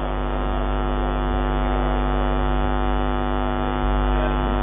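Steady electrical mains hum through a public-address system: a buzz with many evenly spaced overtones.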